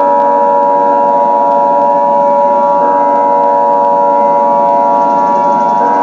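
Emergency Alert System attention signal: a loud, steady electronic alert tone of several pitches held together, which cuts off at the very end.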